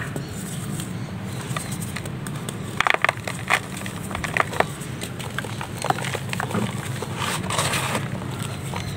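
Hands crumbling dried sand-and-cement chunks into a bowl: gritty crunching and crackling, with the sharpest cracks around three to four seconds in, then the powder being rubbed and sifted. A steady low hum runs underneath.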